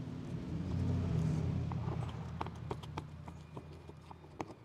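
Hand screwdriver backing a carry-handle mounting screw out of a plastic kayak hull: scattered small clicks and taps of metal on plastic, over a low steady hum that swells about a second in and fades near the end.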